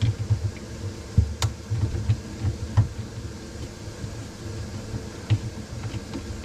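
Hands working a dishwasher drain hose onto a garbage disposal under a kitchen sink: irregular low handling thumps and scattered light clicks and knocks, the sharpest about a second and a half in, over a faint steady hum.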